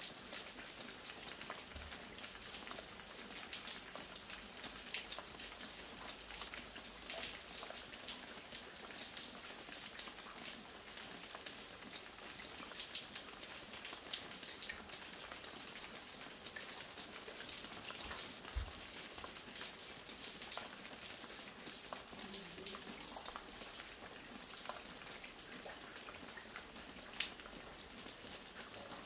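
Fine, light rain falling steadily, a dense patter of small drops. A few louder single drips stand out about 5, 14, 18 and 27 seconds in, like water dripping from a roof.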